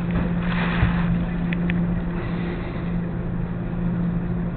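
Steady mechanical drone and electrical hum of coin-laundry washers and dryers running. A brief rush of noise comes about half a second in, and there are two short high ticks about one and a half seconds in.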